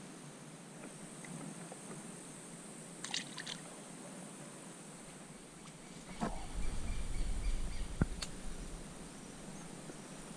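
Steady high buzz of insects, with a few sharp clicks. From about six seconds in, a couple of seconds of low rumbling and rustling come from the camera being carried through brush.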